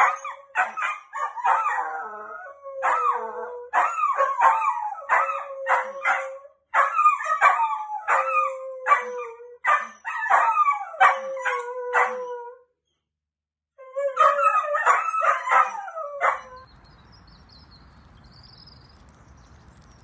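Dachshund howling: a long series of loud, wavering howls, broken by short pauses and a silent gap about 13 seconds in. The howling stops about 16 seconds in, leaving only a faint background hiss.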